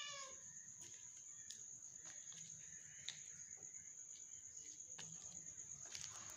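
A cat's meow trails off at the very start, then a faint, steady, high-pitched insect trill runs on. Scattered soft clicks sound over it.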